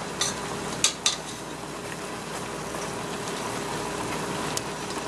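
Pork pieces sizzling in their juices in a pot as wooden chopsticks stir them. There is a steady hiss, with a few sharp clicks of the chopsticks against the pot in the first second or so and again near the end.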